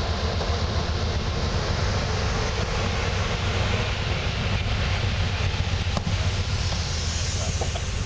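Amtrak Horizon passenger coaches rolling slowly past, a steady rumble and rattle of steel wheels on the rails, with one sharp click about six seconds in.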